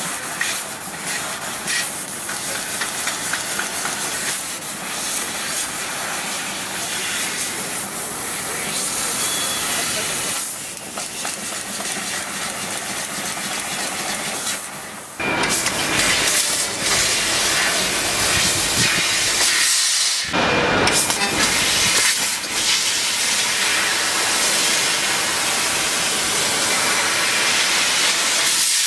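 CNC fiber laser cutting head cutting sheet metal: a steady hiss from the assist-gas jet blowing through the cut. About halfway through it jumps to a louder hiss, breaks off briefly a few seconds later, then carries on steadily.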